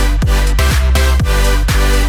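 Electronic dance music with a steady four-on-the-floor kick drum, about two beats a second, over a sustained bass line.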